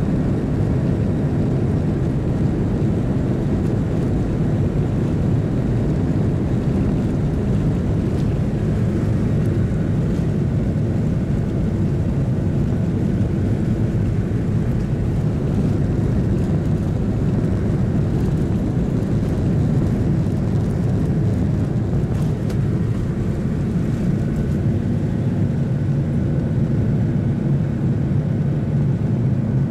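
Cabin noise of a Boeing 737-800 heard from a window seat over the wing: its CFM56-7B turbofan engines and the airframe rolling on the ground give a steady low rumble that stays even throughout.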